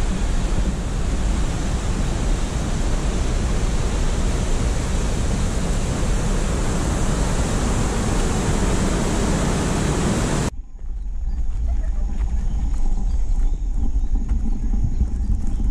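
Waterfall and rocky mountain stream rushing, a dense, even sound of falling water. About ten seconds in it cuts off suddenly, giving way to a low rumble of wind on a moving action camera's microphone.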